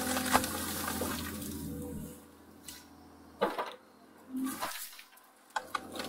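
Hyundai R220LC-9A excavator heard from inside its cab: the diesel engine runs with a steady low hum and a rushing hiss while the rake bucket works. The sound falls quieter about two seconds in, with a few sharp knocks.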